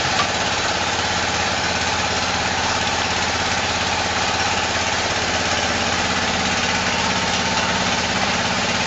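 A large engine idling steadily, an even low hum with a constant rushing noise over it and no change in speed.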